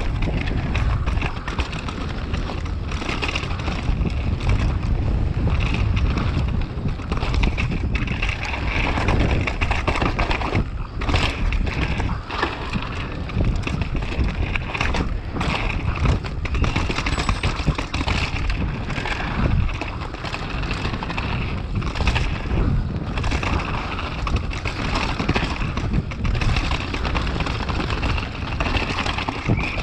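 Downhill mountain bike descending fast over rough, technical trail: wind buffeting the microphone, tyre noise on dirt and rock, and frequent clattering knocks from the bike over the bumps.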